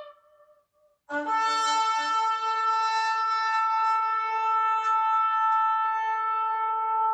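Shofar blown: the end of one blast dies away, and about a second in a new long, steady blast starts and is held, opening with a brief lower note.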